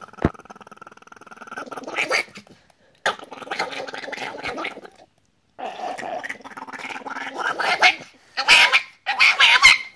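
A small Chihuahua-type dog snarling and growling in several rough stretches broken by short silences, loudest near the end. A sharp click comes just after the start.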